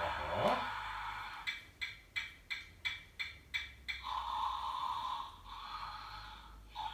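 Electronic tune from a children's musical sound book's small speaker, set off by the child pressing the book: a run of about eight short, evenly spaced notes, then a held note. A short rising vocal sound comes near the start.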